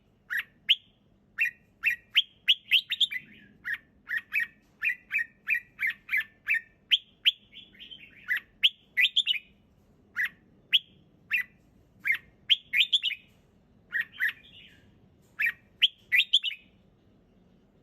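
Red-whiskered bulbul singing: quick phrases of short, sharp, clear whistled notes, several notes a second, with brief pauses between phrases and a pause near the end.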